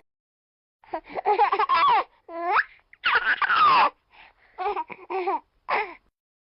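A baby laughing in about five high-pitched bursts with short pauses between them, one of them a falling squeal.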